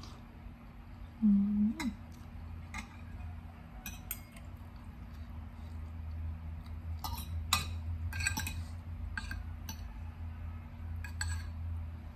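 A metal fork and spoon clink and scrape against a plate as noodles are twirled and lifted, in scattered taps that come thickest in a run a little past the middle. About a second in, a short low hummed "mm" from the eater, rising at its end, is the loudest sound.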